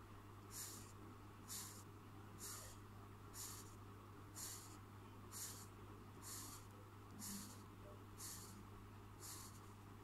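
Blue felt-tip permanent marker scratching across paper in short, even strokes, about one a second, as a square is coloured in. Faint, over a steady low hum.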